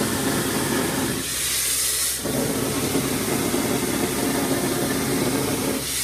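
Gunite being shot through a nozzle with compressed air: a continuous loud hiss of air and concrete spray over a steady rumble. Twice, about a second in and near the end, the rumble drops out for about a second and the hiss turns sharper and higher.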